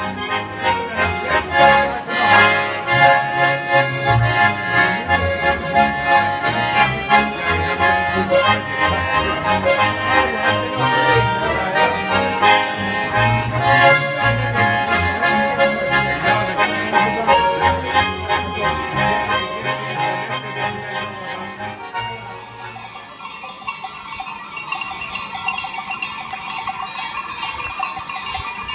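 Two button accordions and a double bass playing a folk tune. About 22 seconds in the music gives way to the ringing of bells worn by a herd of goats.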